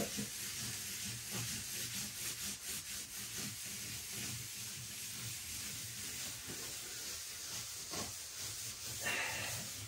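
Hands rubbing and smoothing a PVC sheet down onto a flat panel, a soft steady rubbing hiss, pressing the film evenly so it bonds without bubbles.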